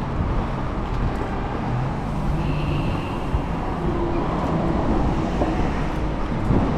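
Wind rushing over the microphone: a steady, dense low rushing noise.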